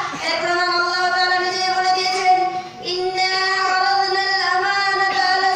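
A young woman's voice singing long, held notes into a microphone, with a short break for breath about halfway through.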